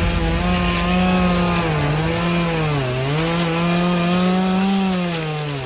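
Chainsaw sound effect running continuously at a steady drone, its pitch sagging briefly about two and three seconds in and again near the end.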